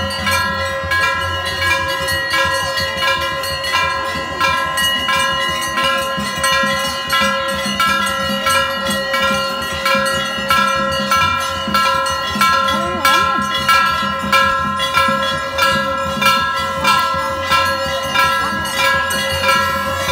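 Brass temple bell struck over and over, about once a second, each ring running into the next so the ringing never dies away.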